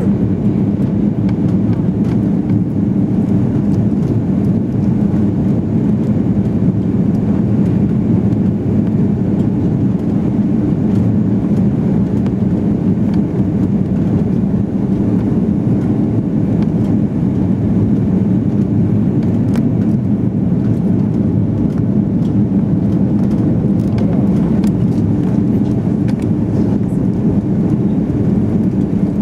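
Steady low drone inside an airliner cabin on its landing approach: engine and rushing-air noise at a constant level.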